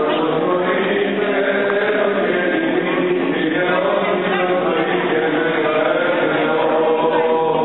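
Greek Orthodox Byzantine chant sung by several voices, a steady unbroken melody.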